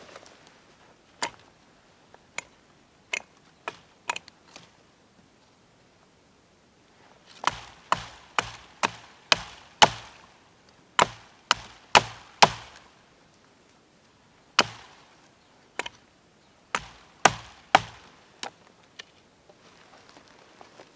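Hatchet chopping a dry branch held upright: a few light strikes, then two runs of sharp chops about two a second.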